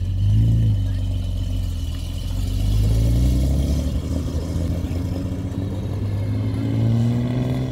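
A car engine revving loud and deep, its pitch rising and falling several times and climbing again near the end.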